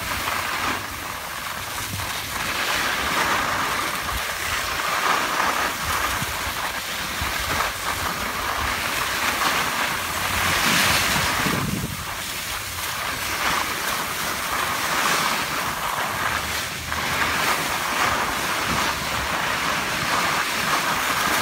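Skis sliding and scraping over packed snow, a continuous rushing hiss that swells and eases with the turns, mixed with wind buffeting the microphone.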